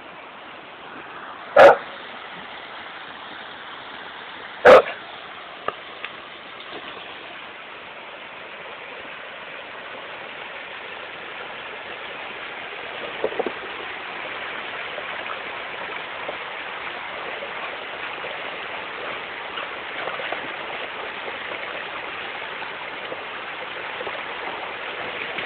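A bull terrier barks twice, about three seconds apart, near the start. Under it a shallow river runs over stones, its rushing growing steadily louder.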